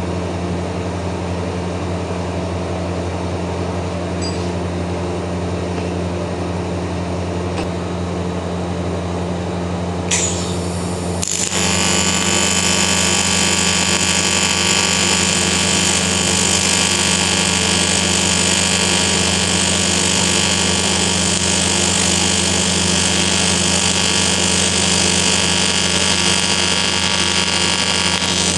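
Steady low hum, then about eleven seconds in an AC TIG arc strikes on cast aluminium after a brief crackle and buzzes steadily from the Hobart Beta-Wave welder, much louder than the hum.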